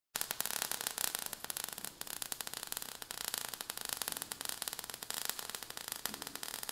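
Quiet, steady crackling hiss made of many rapid tiny crackles: a sizzling-sparks sound effect.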